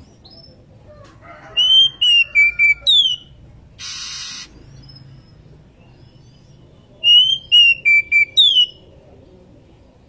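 Female oriental magpie-robin calling in two whistled phrases about five seconds apart. Each phrase is a quick run of about five clear notes ending in a falling note, the calling of a female in breeding condition. A brief hiss sounds about four seconds in.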